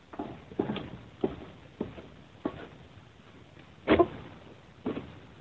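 Egrek, a long-poled harvesting sickle, cutting into an oil palm crown: a string of short, sharp knocks and cracks every half second or so, with the loudest crack about four seconds in.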